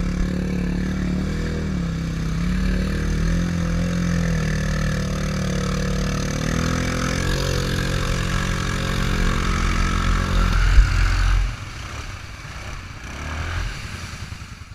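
Off-road utility vehicle engine running hard under load in deep mud, its pitch wavering up and down. About ten and a half seconds in it swells and there is one sharp knock, then it drops back to quieter, lower running.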